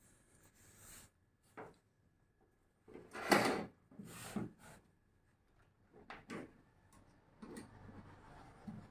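Handling noise from an orange MDPE pipe and its electrofusion fitting being set up on a wooden table: a few separate knocks and clunks, the loudest about three seconds in, then rubbing and scraping near the end.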